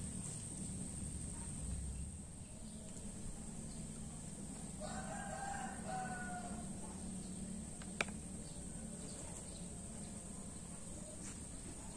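A rooster crows once, about five seconds in, a call of under two seconds that sags slightly in pitch at the end. A single sharp click comes about three seconds later.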